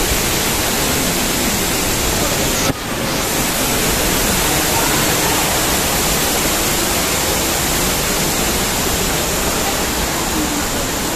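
A steady, loud rush of falling water, with faint voices under it. The sound drops out for an instant about three seconds in.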